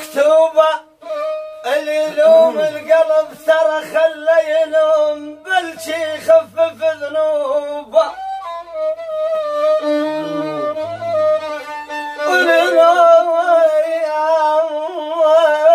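Solo violin playing a melody with wavering, sliding notes, in short phrases broken by brief pauses. It grows louder about twelve seconds in.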